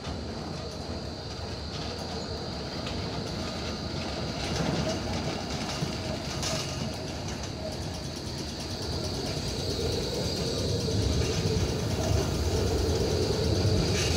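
Melbourne E-class Bombardier low-floor tram rolling around a curve and drawing up alongside. Its running and wheel noise on the rails grows steadily louder as it nears, loudest near the end.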